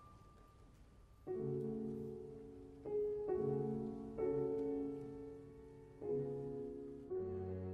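Slow instrumental music of chords struck one after another, each left to ring and fade. The first second or so is quieter, and then about six chords follow.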